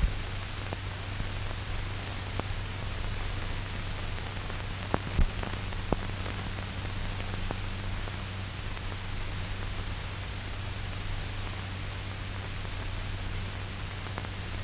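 Steady hiss and low hum of an old film soundtrack, with a few scattered clicks and pops, the strongest about five seconds in.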